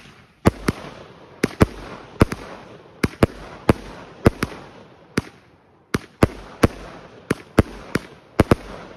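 A 36-shot consumer firework cake firing: a quick string of sharp bangs, two or three a second and often in close pairs, as shells launch and burst, with salutes mixed in. A noisy hiss fills the gaps between the bangs.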